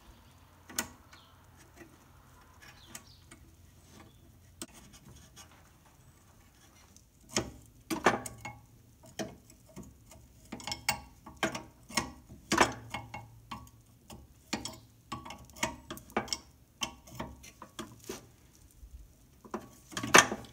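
Wrench clicking on a nut in quick, uneven runs of sharp metal ticks as the hand throttle mount bracket is bolted to a tractor's sheet-metal dash. There are a few scattered clicks at first, and the clicking gets going about seven seconds in.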